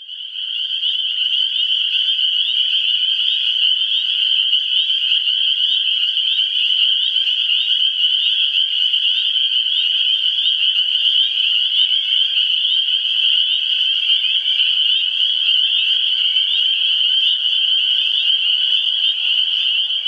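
A dense chorus of frogs calling at night: many short, high calls overlapping into a steady shrill sound that fades in over the first second.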